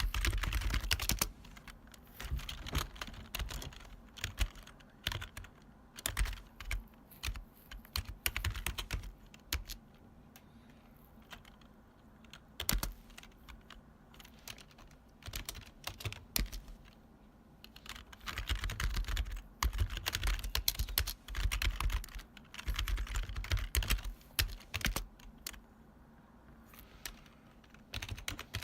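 Typing on an old-style retro keyboard with long key travel. The keystrokes are loud and clacky, coming in fast runs with sparser single keys and short pauses between.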